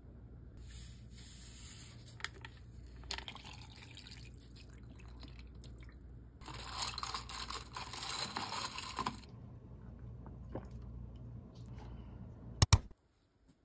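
Powdered iced tea mix being stirred into water in a tumbler with a straw: liquid swishing, loudest for a few seconds in the middle, with a few light clicks. A sharp double knock near the end.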